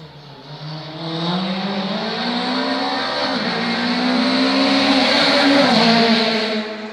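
Rally car at full throttle approaching and passing close by. The engine note climbs, drops briefly about three seconds in at a gear change, then climbs again. It grows louder to a peak near the end, then falls away.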